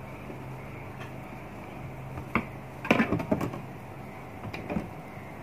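A metal ruler and pen being handled and set down on a table over a paper pattern: a few light knocks and clatters, loudest in a quick cluster about three seconds in, over a steady low hum.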